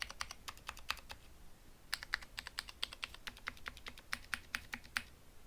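Typing on a Vortex ViBe mechanical keyboard modded with lubed Cherry MX Clear switches and 62 g springs: a quick run of key clicks, a short pause about a second and a half in, then more typing that stops near the end.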